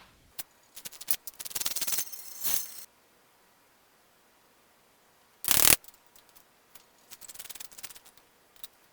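Hand wrench work on the tractor's bolts: bursts of rapid ratchet-like clicking and scraping of metal, with one short, loud knock about five and a half seconds in.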